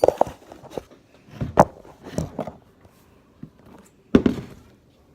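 Irregular handling noises: a series of short taps and knocks, about half a dozen, the loudest about four seconds in.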